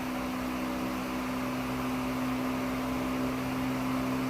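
A steady mechanical hum with a constant droning tone and an even hiss, unchanging throughout.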